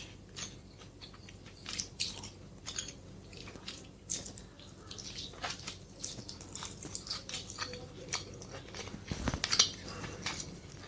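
Close-miked eating sounds: crunchy bites and chewing, a run of short crisp crackles at uneven intervals, with a louder crunch near the end.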